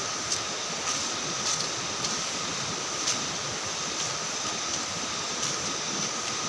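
Heavy rain falling steadily as a continuous hiss, with scattered louder drops ticking now and then.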